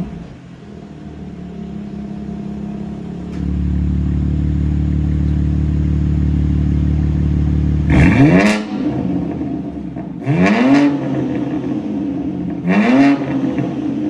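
BMW M4 Competition's S58 twin-turbo inline-six idling through a Valvetronic Designs midpipe and the stock rear exhaust; a little over three seconds in the idle steps up to a louder, steady note as the exhaust valves open. Then three short throttle blips, each revving up and falling back to idle.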